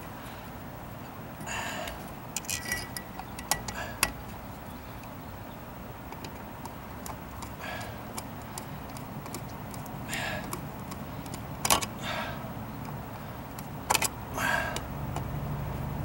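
Scattered clicks, taps and short rattles of hand tools and hardware being handled while an outdoor GFCI outlet is worked into its box, at irregular moments over a steady low hum.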